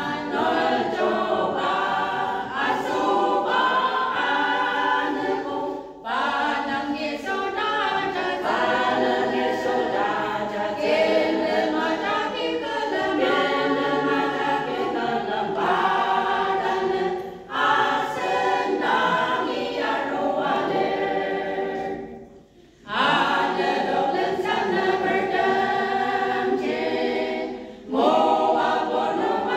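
A women's choir of eight singing a hymn unaccompanied, with short breaks between phrases.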